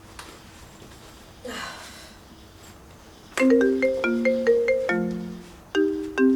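Marimba-style phone ringtone starting a little over halfway in: a repeating melody of short struck notes, with a brief pause before it repeats. Before it, a quiet stretch with a faint rustle.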